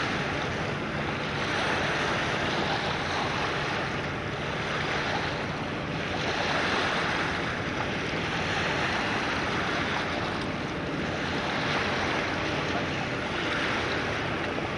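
Steady rushing of wind and water on the camcorder microphone, swelling and easing every few seconds.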